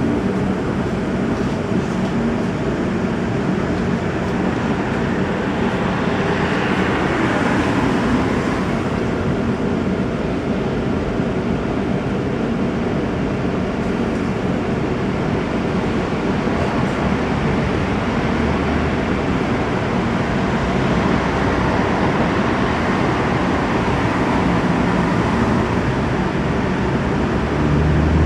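Interior of an ageing tramcar running along rough, lively track: a steady rumble of wheels on rail, swelling briefly about a quarter of the way in.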